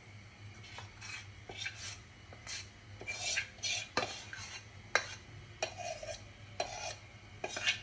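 Steel spoon scraping thick batter out of a stainless steel pot: repeated short scrapes of metal on metal, with a couple of sharp clinks about four and five seconds in.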